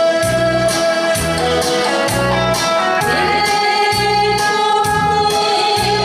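A woman singing into a microphone over a recorded backing track, with a steady beat of about two strokes a second.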